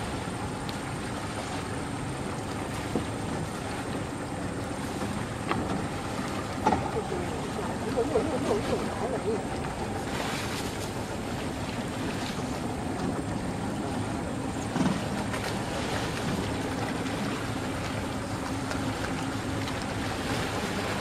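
Steady hum and wash of a river boat on the water, with wind on the microphone. A few short, sharp sounds stand out over it.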